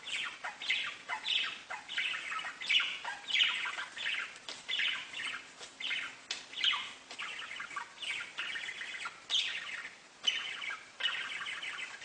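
Budgerigars chirping and warbling in a quick, steady run of short chirps, about two a second.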